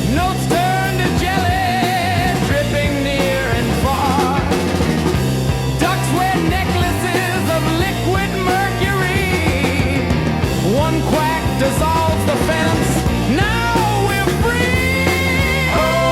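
AI-generated rock song with a steady driving beat and a wavering lead melody over it.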